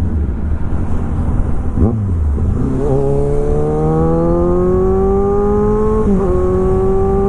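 Kawasaki Ninja 1000's inline-four through an SC Project full exhaust. The revs fall away, there is a quick blip about two seconds in, and from about three seconds the engine pulls steadily under acceleration with slowly rising pitch, broken by a short dip at a shift about six seconds in.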